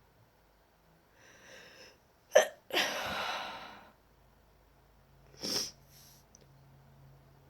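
A person with a head cold sneezing oddly: a faint breath in, a sharp sneeze a little over two seconds in that trails into a long breathy exhale, then a second, shorter sneezy burst about three seconds later.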